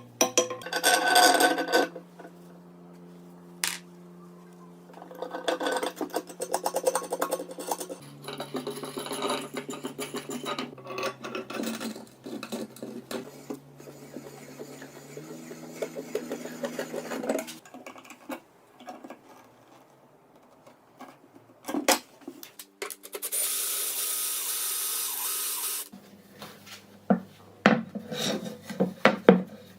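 Hand filing or rasping in runs of quick scratchy strokes. About two-thirds of the way through, a power tool runs steadily for about three seconds. Low steady tones that change pitch every few seconds sound underneath throughout.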